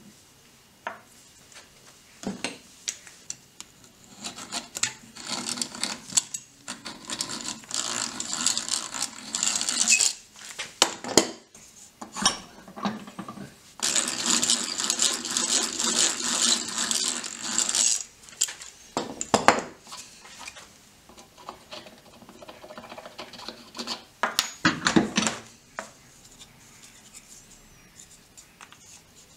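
Hand drill boring a hole through a small wooden block: two spells of drilling, each several seconds long, with the gears whirring and the bit cutting wood. Knocks and clatter come between them as the block and tools are handled on the bench.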